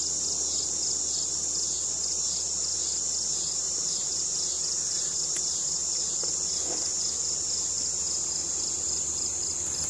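A steady high insect chirring that pulses a few times a second, over a softer buzz of honeybees swarming around the opened hive; the bees are loud.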